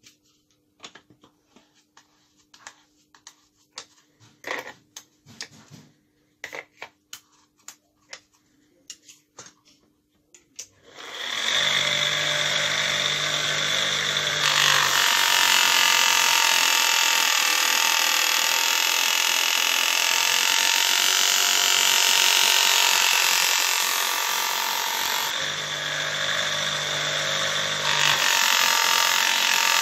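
Light clicks and taps of handling, then about eleven seconds in a small electric knife-sharpening machine starts and runs steadily with a harsh grinding hiss as the blade is sharpened on it.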